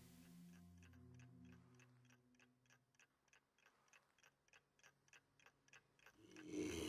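Clock ticking faintly and steadily, about three ticks a second. A low hum fades out in the first two seconds.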